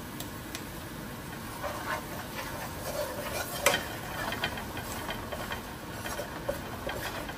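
Curry frying in hot oil in a cooking pot, a steady sizzle, while a spoon stirs and scrapes against the pot with scattered clinks; one sharper clink a little past halfway.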